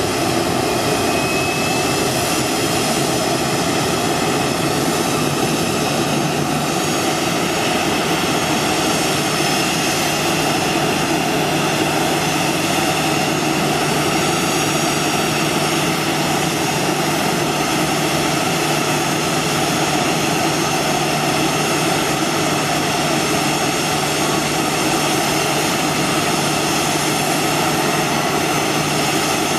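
Boeing 737-800's jet turbines running steadily as the aircraft is started on the ground: a loud, even whine with several high steady tones.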